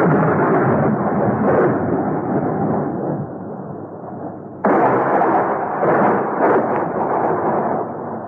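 Two thunderclaps: one at the start and another about four and a half seconds in, each breaking suddenly and then rolling off into a long rumble.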